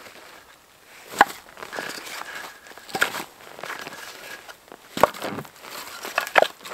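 Split firewood being picked up off the snow and stacked into an armload: about four sharp wooden knocks as the pieces clunk together, with shuffling and crunching steps in snow between them.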